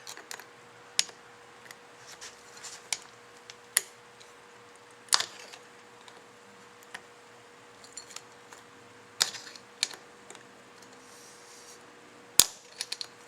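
Screwdriver working at the inlet valve inside an aluminum Carter fuel-pump vacuum casting: irregular metal clicks and short scrapes as the blade digs and pries, with a sharp snap near the end.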